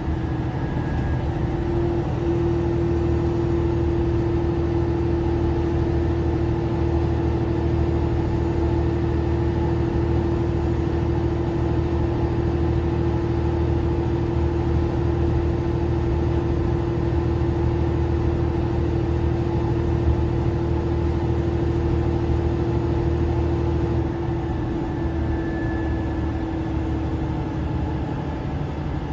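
Mercedes-Benz Citaro C2 LE city bus heard from inside the cabin while under way: a steady engine and road drone with a constant whine held above it, the whine fading near the end.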